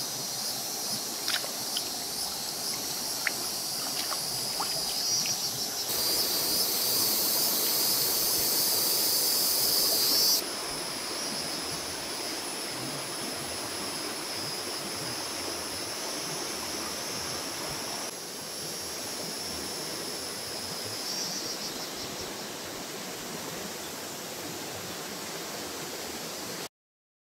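Riverside forest ambience: water splashing and trickling as a fish is washed at the river's edge, with a few small clicks in the first few seconds, under a steady high-pitched insect buzz. The sound shifts at a few edits and cuts off just before the end.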